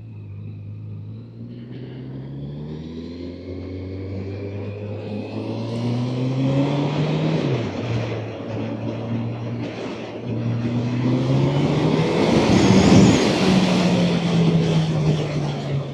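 Honda CB1000F's inline-four engine accelerating through the gears, its pitch rising, dropping at a gear change about seven and a half seconds in, then rising again. Wind noise builds with speed, loudest about two-thirds of the way through, before the engine note falls away as the bike eases off.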